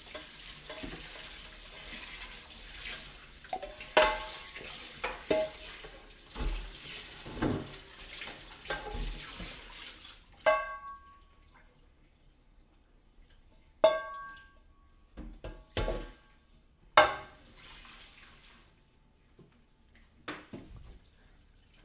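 Hissing noise dotted with clicks and clinks for about ten seconds. Then the hiss stops and about six separate sharp clinks ring out briefly, each with a short pitched ring.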